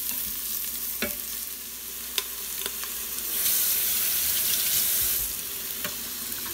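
Onions, curry leaves and ginger-garlic paste sizzling in coconut oil in an Instant Pot's stainless steel inner pot on sauté mode, stirred with a wooden spatula that taps and scrapes the pot now and then. The sizzle swells for a couple of seconds about halfway through.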